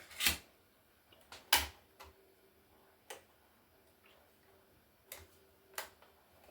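Laptop parts being handled during disassembly: about six scattered sharp clicks and knocks, the loudest about one and a half seconds in.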